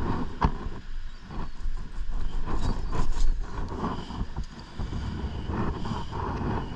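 Wind buffeting the microphone: a gusting, rumbling noise, with a couple of sharp clicks about half a second and three seconds in.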